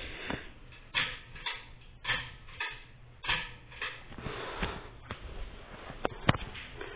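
Hampton Bay Huntington ceiling fan running on medium speed, its moving air gusting over the microphone in repeated short whooshes, with two sharp clicks near the end.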